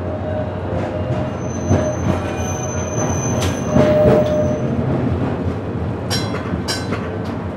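Steady running noise of a restored vintage streetcar rolling along its track, heard from inside the car: wheels on rail and traction gear, with a few knocks and two brief high tones in the first half, and a quick run of sharp clicks near the end.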